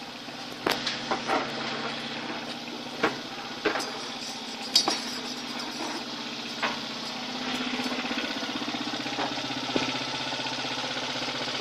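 Motorcycle engine running steadily, with sharp knocks and clicks at irregular moments over it. The engine grows a little louder about seven and a half seconds in.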